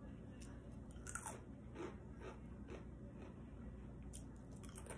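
Faint crunching of someone chewing dry Drumstick corn cereal pieces with the mouth closed, a soft crunch roughly every half second.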